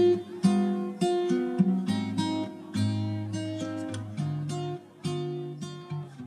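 Background music: an acoustic guitar piece of plucked and strummed chords, a new chord struck about every half second and left to ring.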